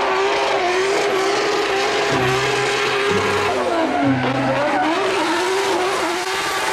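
Race car engine sound at high revs: one steady, high engine note that wavers, dips in pitch about four seconds in and climbs back.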